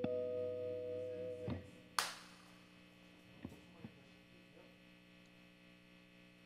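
Strat-style electric guitar through an amplifier: two notes held together, one wavering slightly, then damped about a second and a half in. A sharp click follows. After it the amplifier hums steadily, with a couple of faint picked notes.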